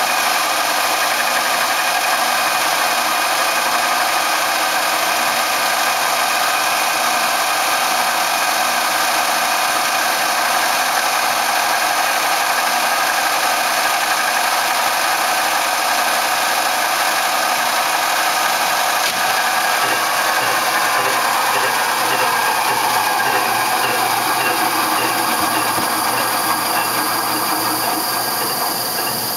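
1982 Phillips gun drilling machine running under power: a steady mechanical whine made of several tones. About two-thirds of the way through, some of the tones slide down in pitch, and the sound eases slightly near the end.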